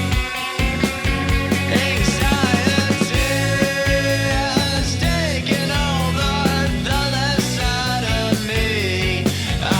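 Rock music with a steady drum beat, distorted guitar and a singing voice.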